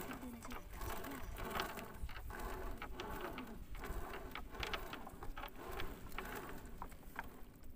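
Nylon gill net being hauled in over the side of a wooden boat: a continuous run of small irregular clicks and ticks with rustling and dripping water as the wet mesh and its floats and weights come aboard.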